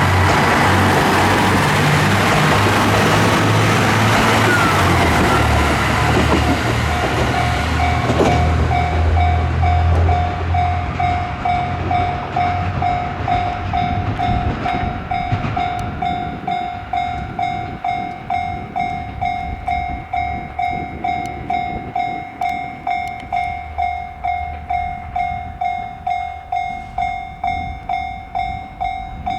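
A train passing over a level crossing, its rumble and wheel noise fading out about eight to ten seconds in. Under and after it, the Japanese level crossing's warning bell rings steadily at about two strikes a second.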